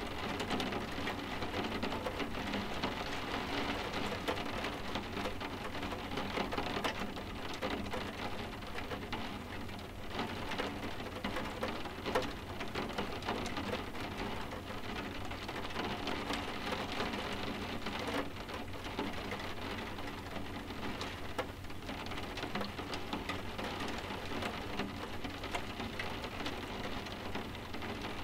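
Soft, steady rain: a dense, even patter of small drops tapping over a constant wash of rainfall.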